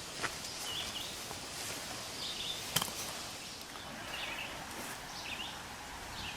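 Outdoor background hiss with faint short high chirps about once a second, and a sharp click near the middle.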